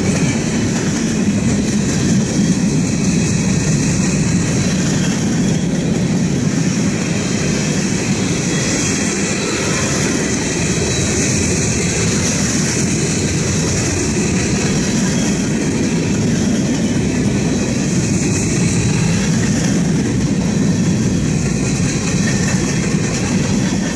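Freight train's covered hopper and tank cars rolling past on steel rails: a loud, steady rumble of steel wheels on track with a high hiss above it.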